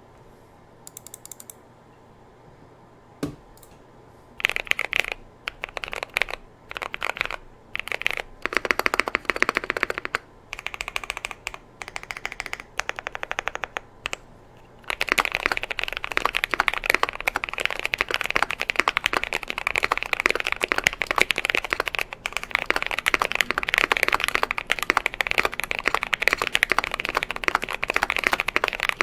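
Typing on a Tofu84 custom mechanical keyboard with filmed and lubed Holy Panda tactile switches, an aluminium plate and PBT keycaps. Short separate bursts of keystrokes for the first half, with one low thump about three seconds in, then continuous fast typing from about halfway through.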